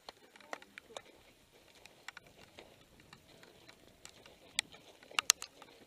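Footsteps crunching on loose gravel and the light clicking and rattling of mountain bikes being pushed uphill, with a few sharper clicks about four and a half and five seconds in.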